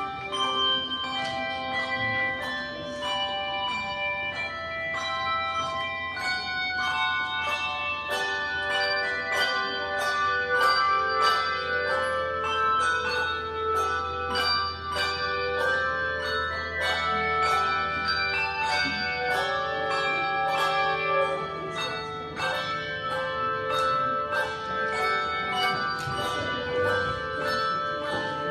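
Handbell choir playing a piece of music: many struck bells ring out in overlapping melody and chords, each note sustaining after it is struck.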